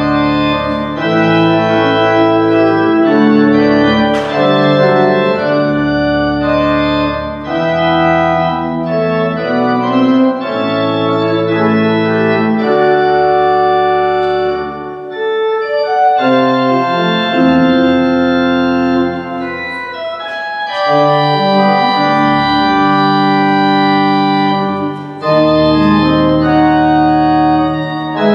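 Church organ playing loud, sustained chords that change every second or two, with short breaks between phrases.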